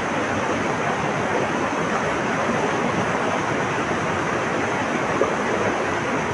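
Flowing water rushing steadily, a constant even wash with no birdsong standing out.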